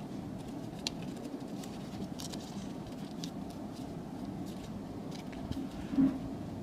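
Origami paper crinkling and creasing in a folder's fingers, faint scattered crackles over a steady low background hum. A short dull thump about six seconds in.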